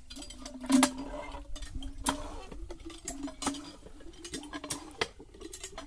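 Hand tube-well pump being primed and worked: water poured into the pump head as the handle is pumped, with repeated metal clicks and clanks over a steady low tone.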